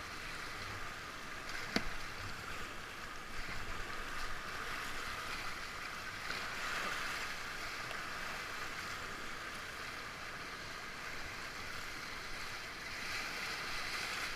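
Rushing whitewater of a river rapid, a steady rush of water heard from a kayak, with a single sharp knock about two seconds in.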